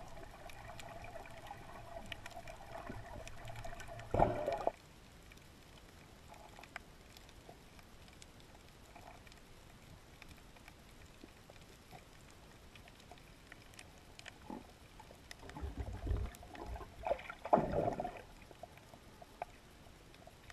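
Muffled underwater sound heard through a submerged camera: a low, steady water hiss, with a short loud rush of water or bubbles about four seconds in and a longer, broken run of rushes near the end.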